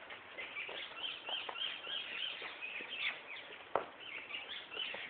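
Small birds chirping steadily in many short, high calls, with a few light knocks, the sharpest about three-quarters of the way through.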